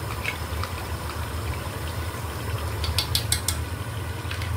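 Biryani masala of tomato puree and spices bubbling and sizzling in oil in a large aluminium pot, over a steady low hum. A quick run of sharp pops or clicks comes about three seconds in.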